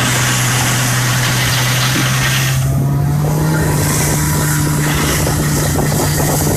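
A motor vehicle's engine running steadily under way, its pitch stepping up slightly about two and a half seconds in.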